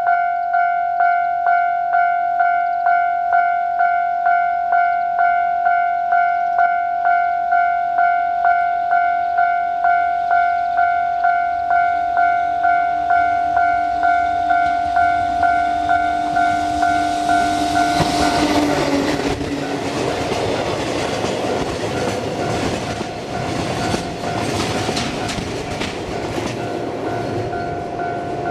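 Japanese level-crossing alarm bell ringing steadily, about two strokes a second. About 18 seconds in, an electric-locomotive-hauled train passes close by with a rushing noise and wheels clattering over rail joints, while the crossing bell keeps ringing underneath.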